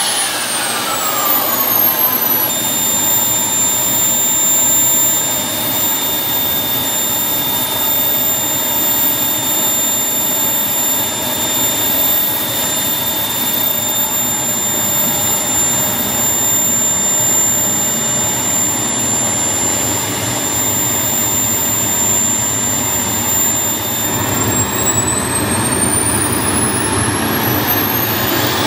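Model jet turbine engine in an RC jet on a ground test run. Its whine falls over the first couple of seconds as it spools down to idle, holds steady as a high whine over a rush of exhaust, then rises from about four seconds before the end as it spools up again.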